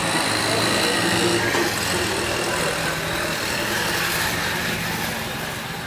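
Street background noise: a motor vehicle engine running steadily amid traffic noise.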